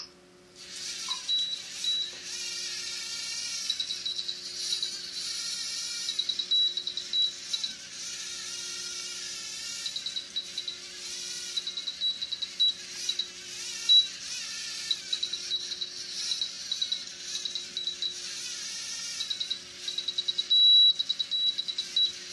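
Small LEGO Mindstorms robot's electric servo motors and plastic gears whirring as it follows the line, their whine wavering up and down in pitch as the wheels keep correcting course. Runs of short, high, same-pitched beeps sound over it many times.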